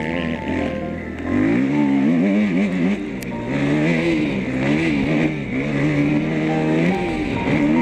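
Motocross dirt bike engine revving up and down as the bike is ridden around the track, its pitch rising and falling over and over, with the throttle opening louder about one and a half seconds in.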